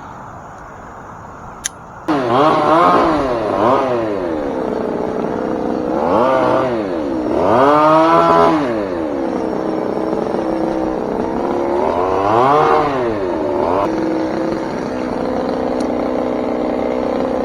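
Two-stroke chainsaw starting up about two seconds in, then idling with its pitch rising and falling as it is revved several times.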